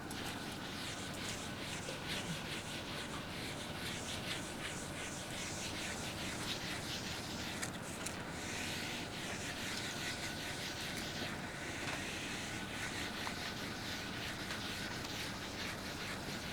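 Handwriting: a pen or marker tip scratching in many short strokes, with a faint steady high hum underneath.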